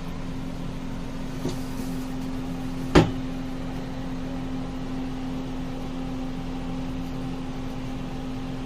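A single sharp crack about three seconds in, from a spinal joint giving way during a chiropractic back adjustment, with a fainter click about a second and a half in. A steady electrical hum runs underneath.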